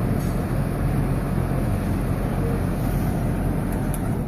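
Zephyr six-blade whole house fan running: a steady rush of moving air with a low hum.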